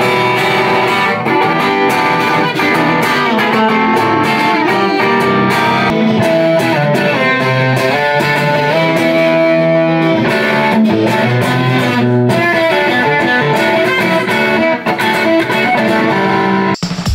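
Bacchus Tactics electric guitar with a P-90 front pickup, played through a BOSS BD-1 Blues Driver overdrive pedal. It plays single-note lines and held notes with light overdrive, in a somewhat round tone.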